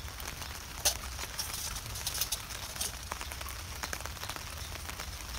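Light clicks and knocks of small metal cookware being handled and set in place, with one sharper click about a second in, over a steady high hiss.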